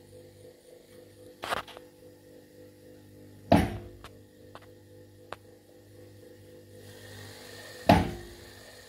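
Bridgeport-type milling-machine power feed running on the knee with a steady hum, broken by three loud clunks as its lever is worked and the drive engages, with a few small ticks between them.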